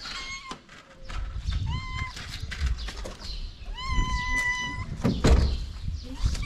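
Calico cat meowing three times, hungry and asking for food: a short call at the start, another about two seconds in, and a longer, level one of about a second starting about four seconds in. A thump a little after five seconds, with a low rumble underneath.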